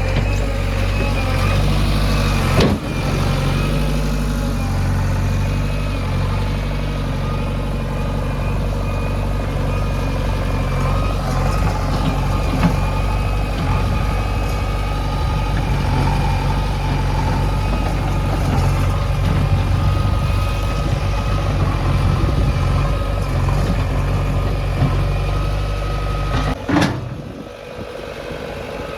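Diesel engine of a JCB 3DX backhoe loader running steadily while it loads mud, with a sharp clank about three seconds in. The engine drone cuts off abruptly near the end.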